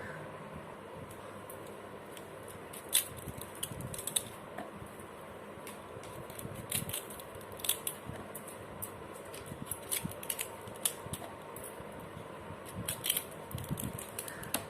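Drumstick pods being cut into short pieces, a scattered run of crisp snips and clicks with small taps of handling.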